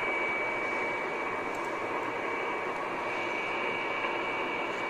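HF amateur transceiver tuned to the 20-metre band, its speaker giving steady band static between transmissions, with a thin steady tone running through the hiss.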